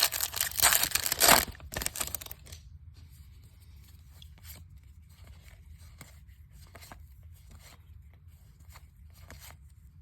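A trading-card pack's foil wrapper torn open, a loud crackling tear lasting about two seconds, followed by faint soft ticks and rustles of cards being handled.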